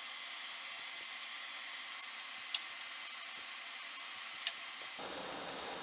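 Steady hiss with a few sharp, light clicks, the strongest about two and a half and four and a half seconds in, from a screw being driven by hand back into a mahogany chair's arm joint.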